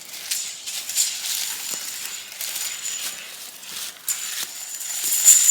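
Rustling and crackling of brush and leaf litter, with many small irregular clicks: someone moving through the undergrowth of a wooded clearing.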